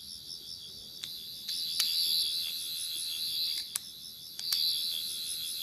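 Tenth Doctor sonic screwdriver universal remote playing its high, warbling sonic sound effect from its small built-in speaker, held on with the button. The sound gets louder in steps partway through as the screwdriver is pulled out, with a few light clicks.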